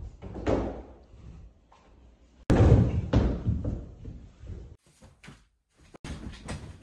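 Thumps and knocks of a person throwing himself down onto a hardwood floor, the loudest a sudden heavy thud about two and a half seconds in. A softer thump near the end as he lands on a bed.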